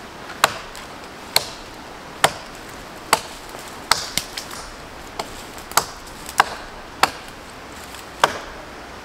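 Axe blows chopping into a fallen tree's branch wood: a run of sharp, separate knocks, about one a second and unevenly spaced.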